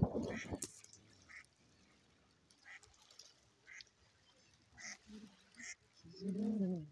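A few short, quiet calls from a duck and her ducklings on the water, spread about a second apart. Near the end comes a louder drawn-out whine that rises and falls in pitch, the dog's excited whine at the ducks. A rush of noise fades out in the first second.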